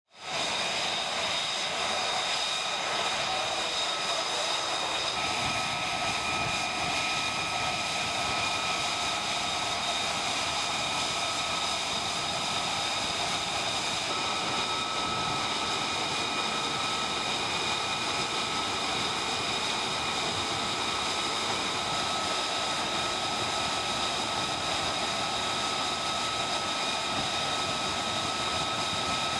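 F-35B Lightning II's F135 turbofan engine idling, a steady jet rush with several high whining tones held level throughout.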